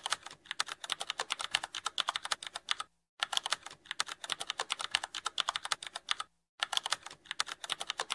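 Rapid keyboard typing clicks, a typing sound effect, broken by two brief pauses, about three seconds in and again about six seconds in.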